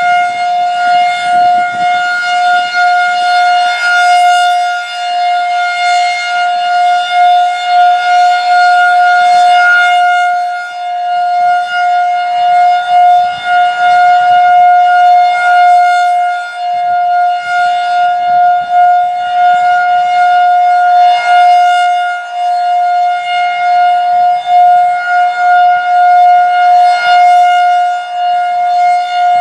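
Federal Signal 2001-DC tornado siren sounding the steady Alert tone: one held pitch, loud, with no rise or fall. The 10 RPM rotating horn makes the sound swell and fade about every six seconds as it sweeps past.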